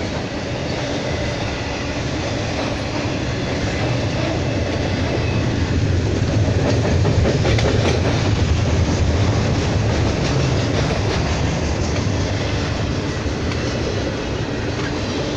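Norfolk Southern intermodal freight train's double-stack well cars rolling past: a steady rumble with the wheels clicking over rail joints, a little louder in the middle.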